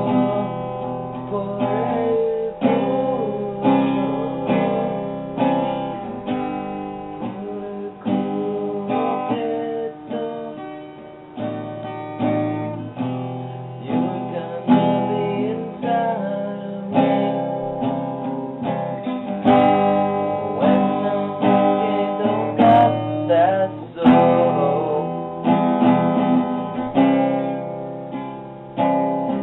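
A song played on strummed acoustic guitar.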